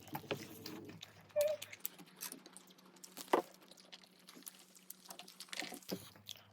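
Faint scattered clicks and taps of food and containers being handled at a table, with a sharper tap a little over three seconds in.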